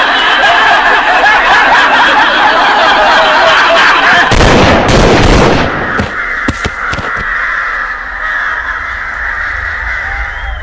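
Several men laughing loudly, cut off about four seconds in by a rapid volley of recorded gunshot effects, followed by a few more single shots.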